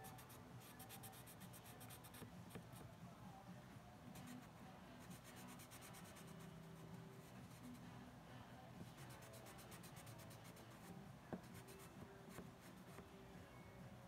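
Faint scratching of a felt-tip marker drawing on a small piece of cardboard, in runs of quick strokes that stop and start.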